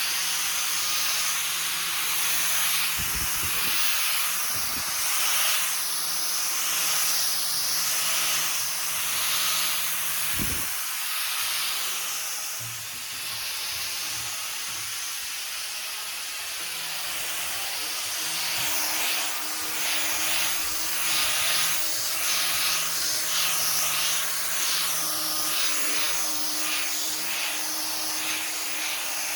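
Orbital sander working over a wooden table top: a steady hiss of sandpaper on wood over a faint motor tone, swelling and fading in repeated strokes as it is pushed back and forth.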